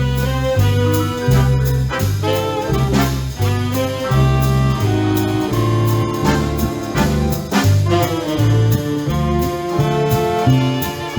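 Swing big band playing live: saxophones and brass holding notes over a bass line that steps on each beat, with a steady drum beat.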